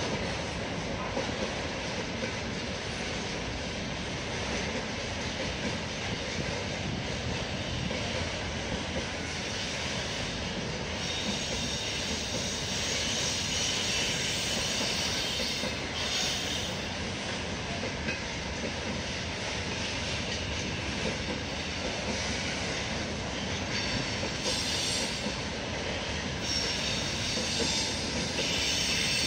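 Container freight train rolling through the station, the wagons' wheels running steadily on the rails, with a brighter hiss that comes and goes.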